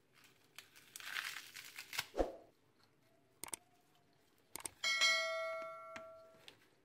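Fresh dill and leafy greens being torn and crumpled by hand, rustling, with a few light knocks against the chopper bowl. About five seconds in comes a single bell-like ding that rings and fades over a second or two.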